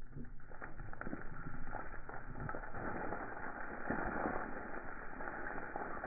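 Loose earth and stones pushed over a quarry face pouring down in a steady rush, with many small rattles and clatters of falling stones. It grows louder about a second in as the fall gets going.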